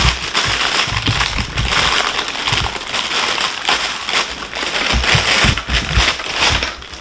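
Clear plastic bag crinkling and crackling as it is handled and pulled open, with a few dull bumps from the toy pieces inside.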